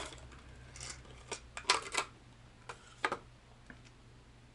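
Clear plastic lure packaging being opened by hand: a run of sharp clicks and crackles between about one and two seconds in, and one more click a little past three seconds.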